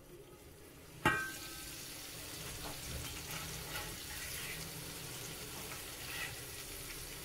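Marinated fish steaks frying in oil in a cast iron pan. A steel lid clinks once about a second in, and then the fish sizzles steadily while a metal spatula turns the pieces with light scrapes.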